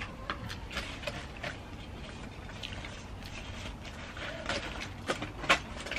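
Someone eating by hand: chewing, with scattered small clicks and rustles of food and dishes over a steady low background rumble.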